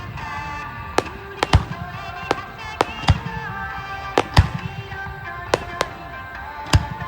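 Aerial firework shells bursting overhead in a festival finale: about a dozen sharp bangs at irregular intervals, one to three a second. Music with held notes plays underneath.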